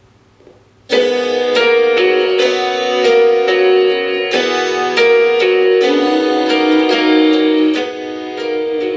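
Song played at full volume through the MTV SoundLogic Soundbox, a portable Bluetooth speaker, starting about a second in with plucked, picked notes over steady held tones.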